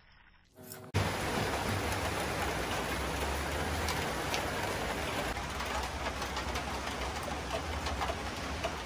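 Heavy rain falling steadily: a dense, even hiss with faint scattered drop sounds and a low rumble underneath. It starts abruptly about a second in.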